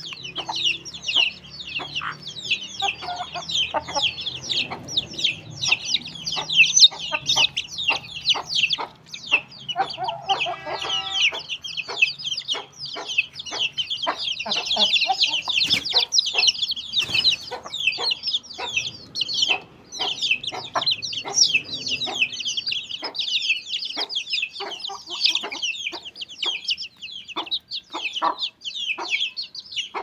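Aseel chicks peeping nonstop in a dense chorus of short, high, falling calls, with adult chickens clucking low now and then and one longer, drawn-out call from an adult bird about ten seconds in.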